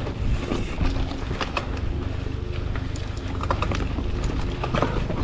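Mountain bike riding over rough, rocky trail: irregular clicks, knocks and rattles from the tyres and bike, over a steady low wind rumble on the GoPro's microphone, with a faint hum that comes and goes.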